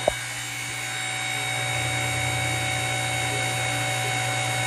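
Powered Model 54 tube bender running steadily with a low hum and a faint whine while bending 2-inch DOM tube; a single click just after it starts.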